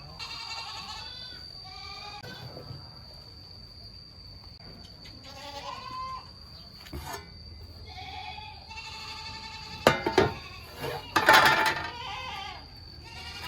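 Goats bleating repeatedly, several wavering calls with the loudest near the end, over a steady high-pitched whine, with a couple of short knocks.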